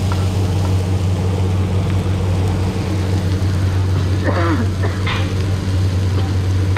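Chicken pieces frying and sizzling on a large iron griddle over a steady low mechanical hum. A brief voice cuts in about four seconds in.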